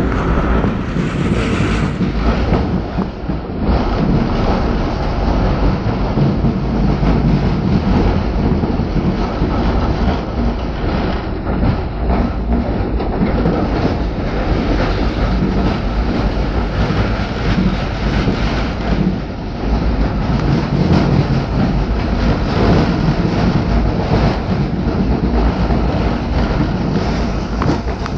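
Steady running noise heard from inside a moving tram, mostly low down: wheels on the rails and the car's running gear as it travels along the street.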